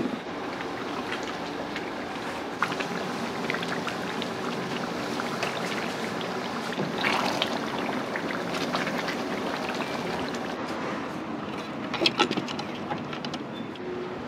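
Sauce boiling and sizzling hard in a wok, a steady hiss, with sharp metal clinks of a ladle against the wok, a cluster of them near the end.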